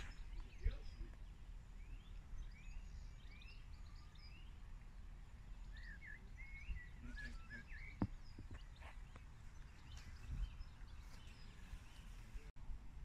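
Faint outdoor ambience of several birds chirping and singing, busiest about six to eight seconds in, over a low steady rumble, with a few faint clicks.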